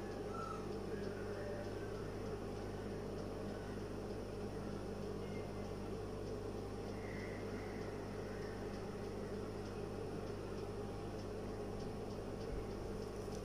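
Steady, unchanging machine hum with a low drone.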